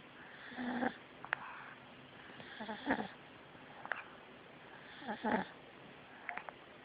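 A domestic cat snoring in its sleep: three raspy snoring breaths about two and a half seconds apart, with small faint clicks between them.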